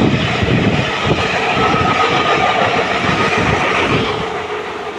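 Athens Metro Line 1 electric train passing close by: wheels rumbling and clattering over the rail joints with a faint whine, fading as the last car goes by near the end.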